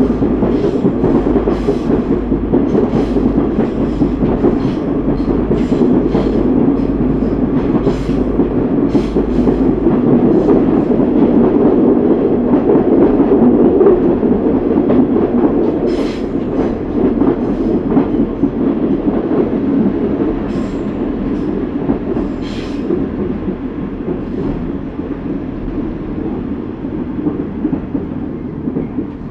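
Class 142 Pacer diesel railbus running along the line: a steady rumble of wheels and underfloor engine, with scattered sharp clicks and knocks from the track. The sound grows a little louder to about halfway, then gradually gets quieter.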